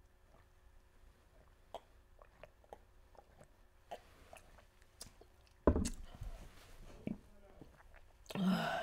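Gulping water from a glass, with small wet swallowing clicks every half second or so. A loud thud comes just under six seconds in, and a short vocal sound near the end.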